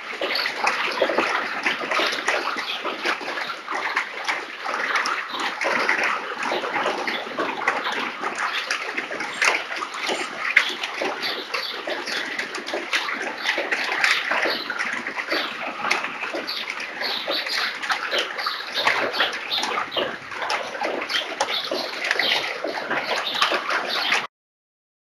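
Continuous scratchy rustling and crackling inside an American kestrel nest box lined with wood shavings, as the kestrels shift about on the shavings. The sound cuts out for about two seconds near the end.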